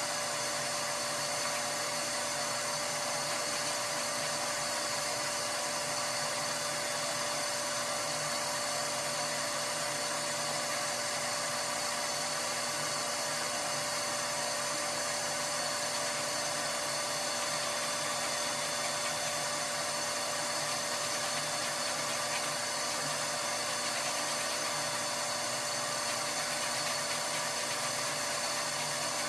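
Electric motor of a power tool running steadily with a constant whine, used to scrub soot from the boiler's flue passages.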